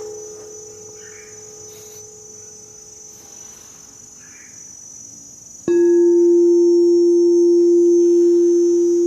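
A singing bowl's ringing tone fades away. About halfway through, a bowl is struck and rings on with a strong, steady, slightly wavering tone.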